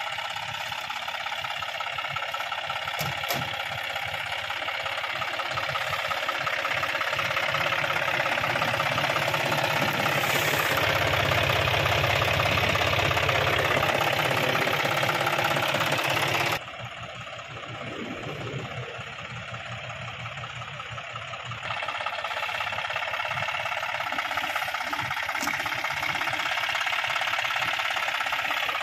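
John Deere 5050 tractor's diesel engine running hard while the tractor rears up on its rear wheels. It grows louder through the first half, drops suddenly about two-thirds of the way in, then picks up again.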